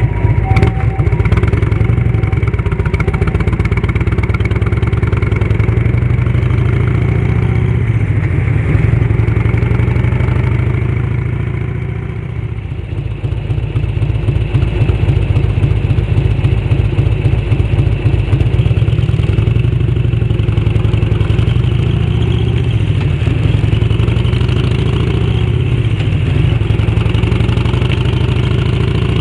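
The 1340 cc Evolution V-twin of a 1991 Harley-Davidson Electra Glide sidecar rig running on the road through a fish-tail silencer. The exhaust beat eases off a little before halfway, then builds again as the bike pulls away.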